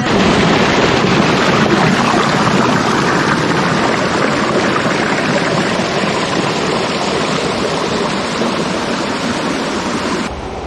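Flowing water rushing steadily, a loud even hiss. Near the end it cuts abruptly to a quieter, lower rumble.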